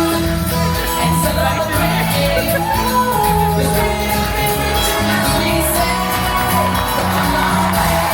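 Upbeat show music with a steady bass line, singing and crowd shouts and whoops over it.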